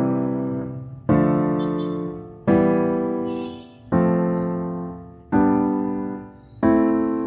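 Three-note block chords on a keyboard's piano sound, played one after another up the chords of the C major scale with the left hand. A new chord is struck about every second and a half and left to ring and fade before the next.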